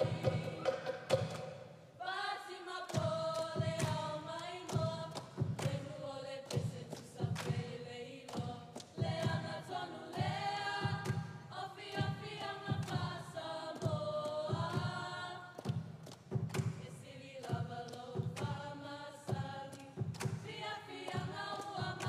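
Polynesian group song: a choir of young women singing together in unison over a steady drum beat of about two strokes a second.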